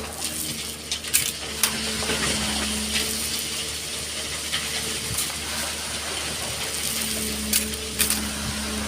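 Excavator at work in sand and stones: its diesel engine hums steadily under a hiss of pouring material, with several sharp clacks scattered through, about a second in, near the middle and twice near the end.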